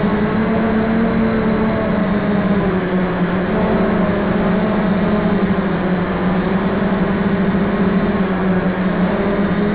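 Hoten-X quadcopter's electric motors and propellers humming steadily, as recorded on the aircraft itself, with a low hum whose pitch drifts slightly up and down as the motors adjust, over a constant rushing noise.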